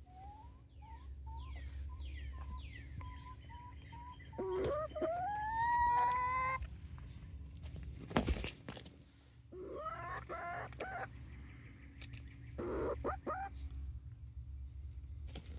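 19-week-old chickens calling: a string of short, evenly spaced notes at about two a second, then longer calls that rise in pitch. A brief knock comes about eight seconds in.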